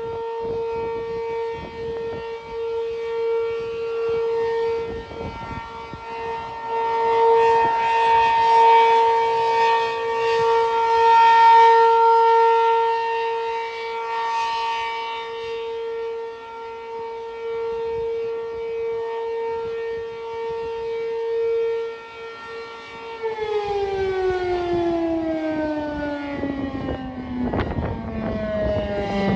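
P-15 civil defense siren sounding its steady alert tone, swelling and fading in loudness. A few seconds before the end it is shut off and begins winding down, its pitch sliding steadily lower.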